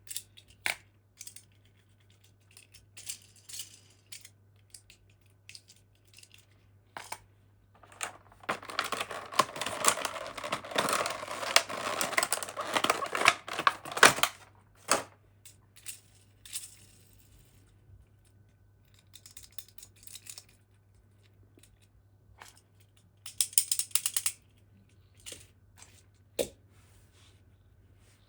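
Close-miked handling of toy packaging during an unboxing: scattered sharp clicks and taps, with a dense run of crackling about eight seconds in that lasts some six seconds, and another short cluster near the end.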